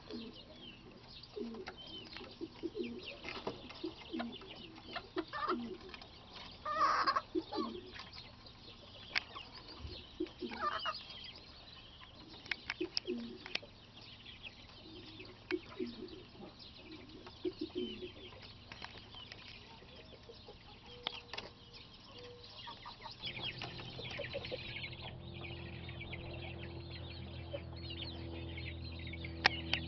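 Red penciled Frisian chickens, a rooster and hens, clucking and calling in short bursts, with a louder squawk about seven seconds in. A steady low hum comes in about three quarters of the way through.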